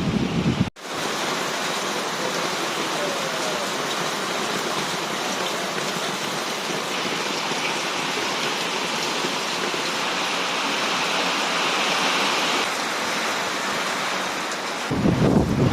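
Strong rain pouring down steadily, a dense even hiss. It starts after a brief dropout just under a second in. Near the end a low rumble of wind buffeting the microphone takes over.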